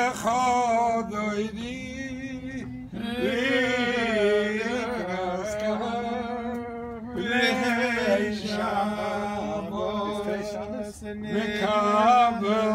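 Men's voices singing a chant-like song together, the melody gliding up and down in long phrases over a held lower note, with short breaths about three and seven seconds in.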